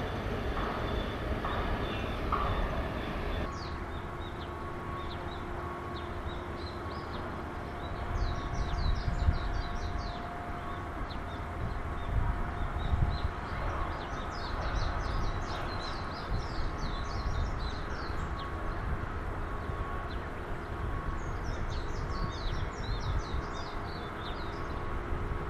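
Small birds chirping in quick repeated calls, starting a few seconds in, over a steady low rumble with a faint hum.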